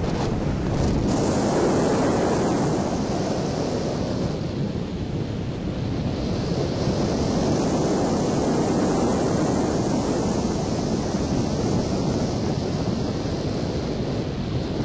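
Steady rush of airflow buffeting the microphone of a camera mounted on a hang glider's wing as it glides.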